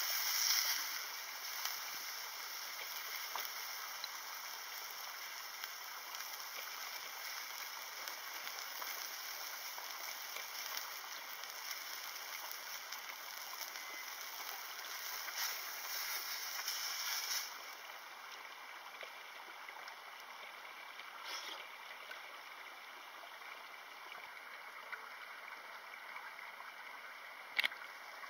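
Beef and sauce sizzling in a frying pan on a portable gas burner, a steady hiss that drops to a lower level about two-thirds of the way through. A single sharp click near the end.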